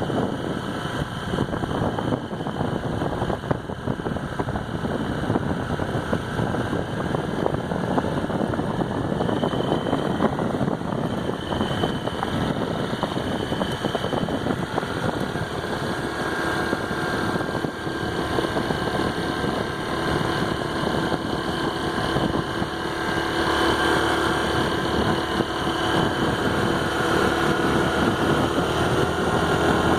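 Honda PCX scooter's single-cylinder engine running, with a steady hum that comes in about halfway and grows louder near the end as the throttle is opened. Over this the owner hears a tinny rattle, like banging tin, that appears only under throttle and stops as soon as the throttle is released.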